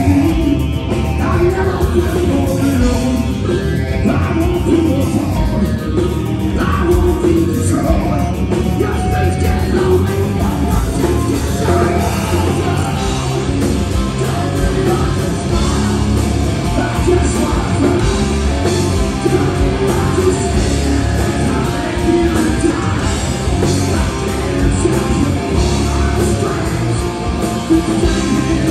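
A rock band playing live: electric guitars and drums, with a lead singer singing into a microphone over them, steady and loud throughout.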